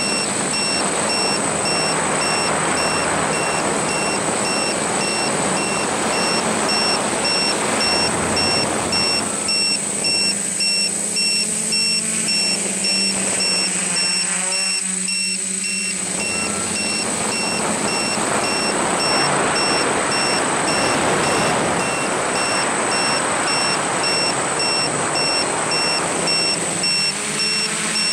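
Electric motors and propellers of a radio-controlled camera aircraft running in flight, with air rushing over the onboard microphone; the motor hum dips and wavers briefly around the middle. A regular train of short, high beeps runs through the whole time.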